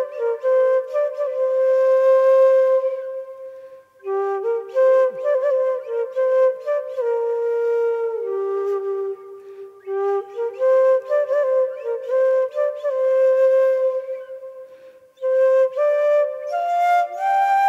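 Background music: a flute melody played in phrases of held and sliding notes, with two short breaks, about four seconds in and again near the end.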